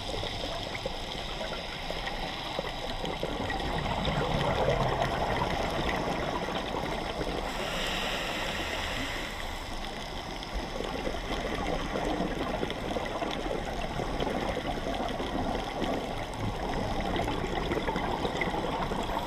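Underwater ambience on a coral reef, heard through a submerged camera: a steady gurgling water noise with a fine crackle running through it, swelling louder about four seconds in and again about eight seconds in.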